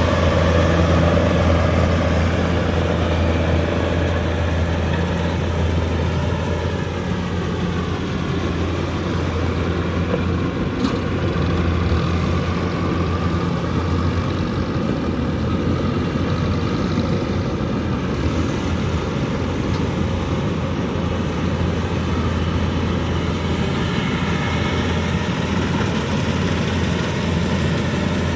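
Kubota DC-105X combine harvester running steadily during rice harvesting, a loud, even engine drone with a strong low hum.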